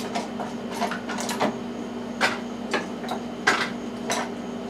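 Irregular knocks and clinks of tools and objects being handled, about eight in a few seconds, over a steady low hum.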